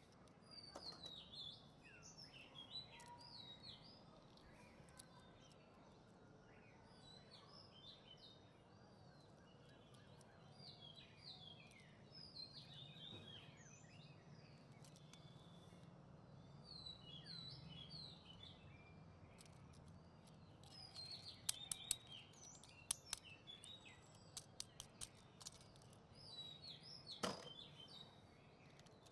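Faint birds chirping, many short, high calls sweeping down in pitch. A run of sharp clicks comes about two-thirds of the way through, and one louder click near the end, from small die-cast toy vehicles being handled.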